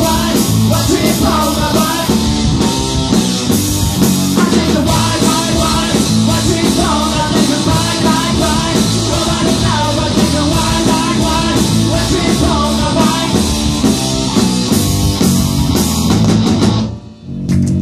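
Rock band playing live, with electric guitars, drum kit and a woman singing. The band stops short for a moment about a second before the end, then comes back in.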